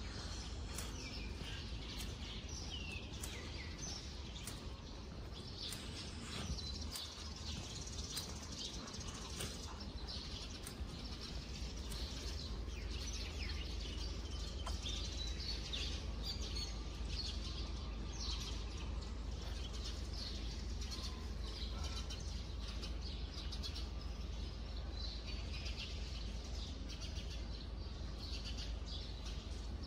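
Small birds chirping in the trees: many short, high chirps come thick and fast, over a steady low rumble.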